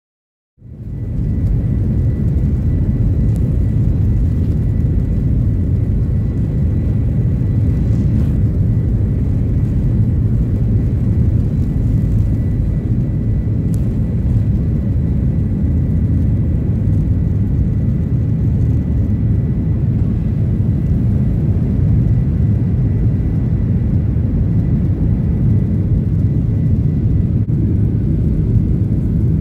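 Steady cabin noise of a jet airliner, a constant low rumble with a faint high steady tone, fading in about half a second in.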